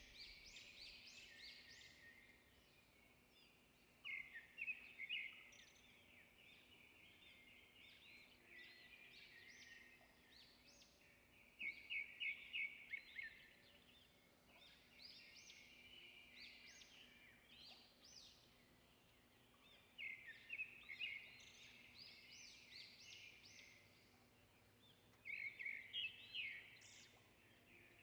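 Small birds chirping and twittering faintly, with a louder burst of quick repeated chirps every several seconds.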